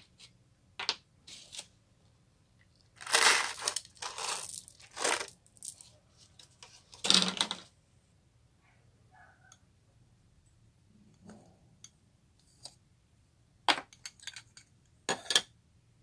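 Slime being squished and worked by hand, in irregular short bursts of sticky squishing noise with quiet gaps between them. The biggest bursts come about three to five seconds in and again about seven seconds in.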